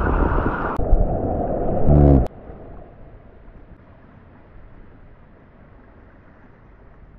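Shallow river water rushing over rocks, loud at first with a brief pitched sound about two seconds in, then cutting suddenly to a much quieter steady rush.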